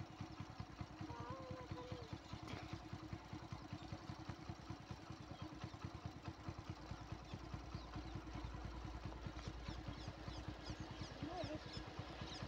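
Faint rumble of a distant freight train passing, the container train's sound swelling in the second half. Under it runs a steady, rapid low thudding like an engine ticking over, with a few short bird chirps.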